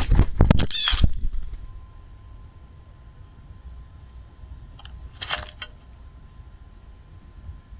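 Mourning doves' wings flapping in short flurries: several loud ones in the first second, then quiet, with another brief flurry a little past five seconds.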